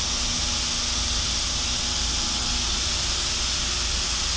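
Steady loud hiss over a low rumble, the constant air and machinery noise of a tobacco conditioning room, with a faint low hum in the first couple of seconds.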